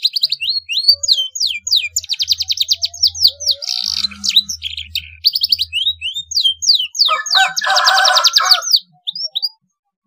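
Domestic canary singing a fast song of rapid trills and quick sweeping whistles, filled with phrases copied from the black-throated canary (blackthroat). A harsher buzzing phrase comes about seven seconds in, and the song breaks off near the end.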